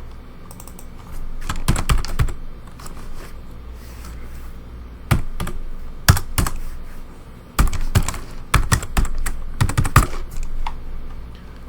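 Typing on a computer keyboard in several short runs of keystrokes with pauses between them, over a steady low hum.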